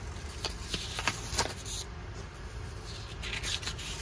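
Paper pages of a spiral-bound planner being handled and turned, a few short brushes and rustles, with longer page-turning rustles about a second and a half in and again near the end, over a steady low hum.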